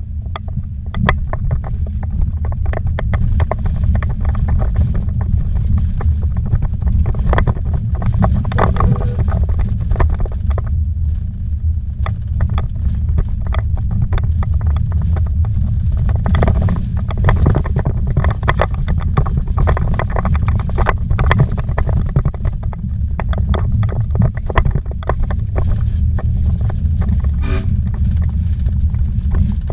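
Inside the cabin of a vehicle driven fast on a rough dirt road: a steady low rumble of engine and tyres, broken by frequent short knocks and rattles as it hits bumps.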